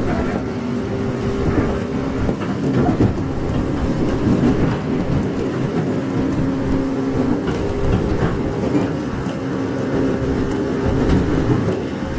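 Running sound heard inside a 415 series 1500-subseries electric multiple unit: a steady rumble of wheels on rail with a changing motor hum and occasional faint clicks.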